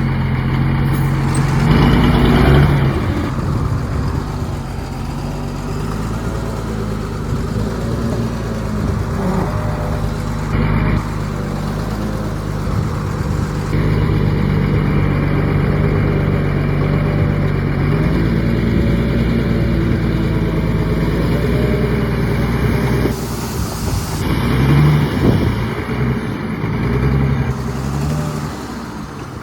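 Heavy diesel engine of the earthmoving machinery running under varying load, its pitch stepping up and down several times. There is a short hiss about 23 seconds in.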